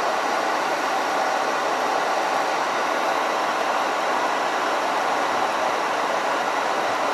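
A steady rushing hiss at an even level, with no breaks.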